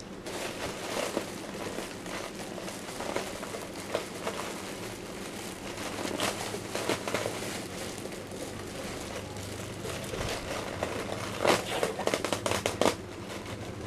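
Clear plastic bag crinkling and rustling as a cap is pulled out of it and unwrapped, with irregular crackles that get louder near the end.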